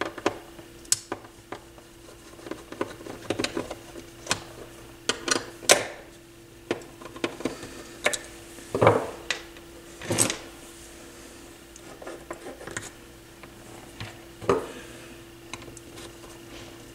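Screwdriver work on a turntable's metal motor bracket: irregular light clicks, scrapes and a few sharper knocks as the mounting screws are backed out. A faint steady hum runs underneath.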